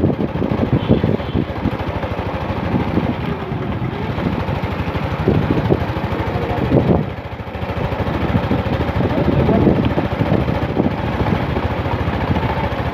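A vehicle on the move: steady engine and road noise, with wind buffeting the microphone.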